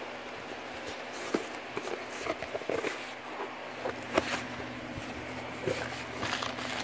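Cardboard shipping box being opened by hand: flaps rustling and scraping as they are folded back, with a few sharp cardboard knocks, the loudest about four seconds in.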